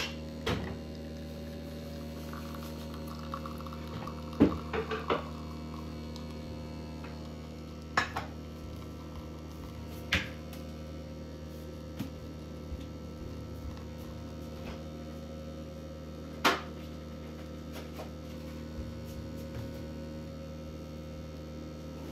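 Kitchen work: a steady appliance hum with knocks and clinks of dishes and utensils every few seconds, the loudest a small cluster about four and a half seconds in and a single knock near the end.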